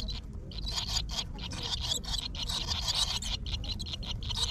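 Swallow nestlings chirping in their nest: a rapid string of short, high-pitched calls, densest in the middle, over a low steady rumble.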